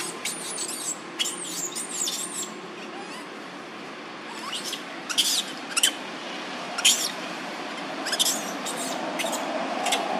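Baby macaque crying in distress with high-pitched, wavering squeals. There is a quick run of squeals in the first couple of seconds, then a short lull, then single sharp squeals about once a second.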